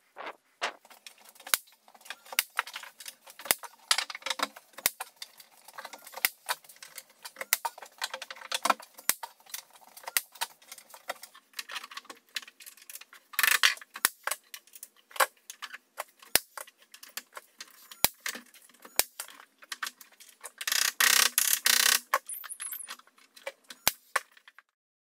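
Carpentry work sounds from fitting a stair handrail and spindles: a rapid string of sharp clicks and knocks of tools and timber, with a short hissing burst about halfway through and a longer one near the end. The sound cuts off suddenly shortly before the end.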